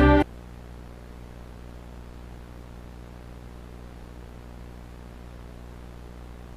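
Stand-by music cuts off abruptly a moment in, leaving a steady low hum with hiss: dead air on a videotape recording of a broadcast.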